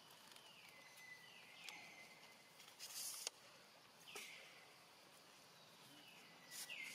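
Faint, high-pitched animal calls, each sliding down in pitch and then holding a steady note, heard four times, with a short hiss of noise about three seconds in.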